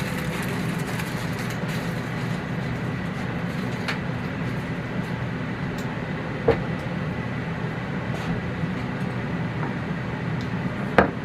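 Steady low hum of a kitchen fan running, with a light click about six and a half seconds in and another near the end.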